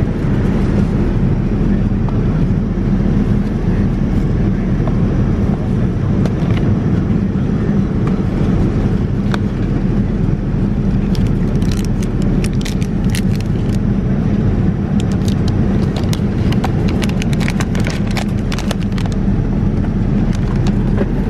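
Steady in-flight cabin noise of a Boeing 787-9 airliner, a low even roar inside the cabin, with a scatter of light clicks and rattles in the middle.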